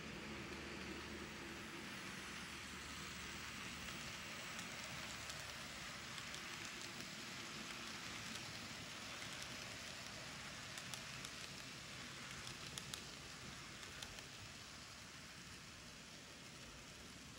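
Faint steady rolling hiss of a Kato N-scale passenger train's wheels on the track, with a few light clicks a little past halfway. The sound eases slightly near the end as the last car passes.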